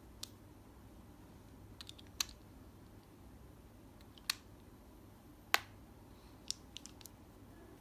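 Scattered sharp, light clicks and taps of small hard objects being handled, about nine of them at irregular intervals, over a faint low steady hum.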